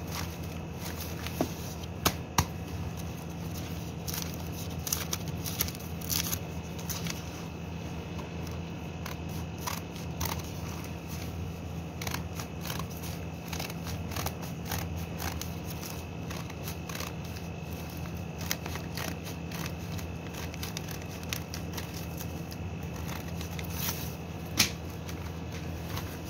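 Sheets of newspaper being handled and torn: rustling, crinkling and tearing with many scattered crackles and a few louder clicks, over a steady low hum.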